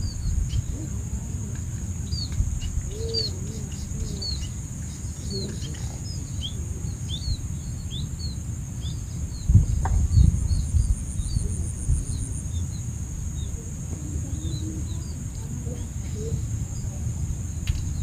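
Small birds chirping with many short, quick high calls, over a steady low rumble and a constant high hum, with a couple of low thumps about halfway through.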